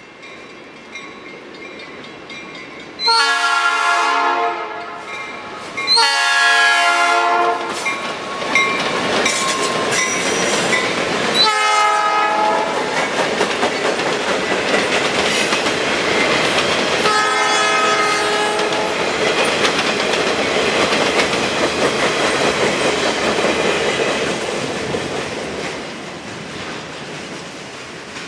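The horn of an EMD SD50 diesel locomotive sounds the grade-crossing signal as it approaches: two long blasts, a short one, then a long one. The freight train then rumbles past on the rails and fades away near the end.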